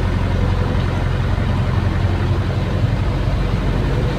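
Excavator's diesel engine running steadily, heard from inside the operator's cab while the boom swings the bucket.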